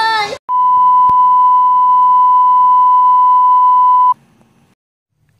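A single steady test-tone beep, the kind played with colour bars, held for about three and a half seconds and cutting off suddenly. A boy's raised voice breaks off just before it.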